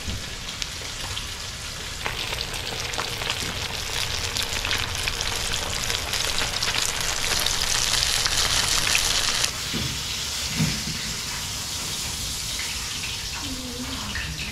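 Snapper fillets deep-frying in hot oil in a cast-iron skillet: a steady crackling sizzle. It grows louder about two seconds in and drops back a little near ten seconds.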